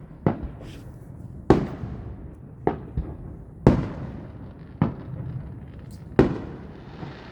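Fireworks bursting overhead: about seven sharp booms at uneven intervals, each trailing off in a rumbling echo, three of them louder than the rest.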